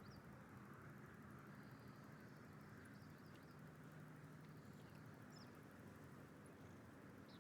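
Near silence: faint outdoor ambience with a low steady hum and a few faint, short, high bird chirps.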